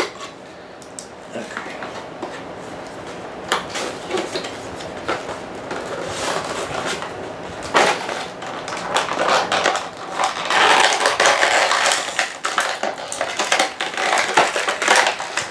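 A figure's cardboard box and packaging being handled and crinkled as the figure is worked out, with scattered clicks and rustles and a louder, denser stretch of crinkling from about ten seconds in.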